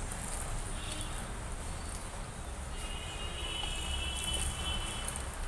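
Hand squishing and mixing rice with curry on a steel plate, with small wet clicks and smacks, over a low steady hum. A high, thin, steady tone comes in about three seconds in and lasts around two seconds.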